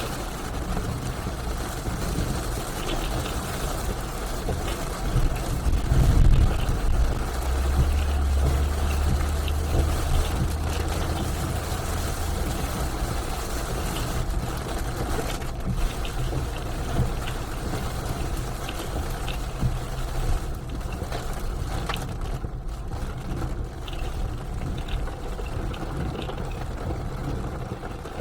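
Car driving on a rain-soaked road in heavy rain: steady tyre spray and road noise over a low engine rumble, with scattered faint ticks. A deeper steady hum comes in for about five seconds a third of the way through.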